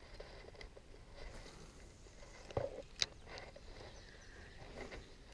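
Faint handling noise of a spinning rod and reel as the lure is wound in, with scattered soft ticks and two sharper clicks about two and a half and three seconds in.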